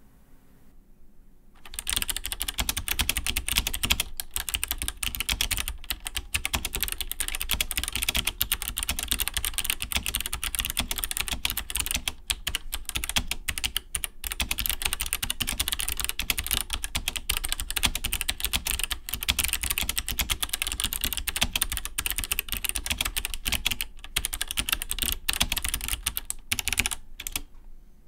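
Steady typing on a Wyse WY-50 terminal keyboard fitted with Kailh BOX Navy clicky switches (click-bar design): a dense, rapid stream of crisp key clicks and keystrokes. It starts about two seconds in and stops just before the end.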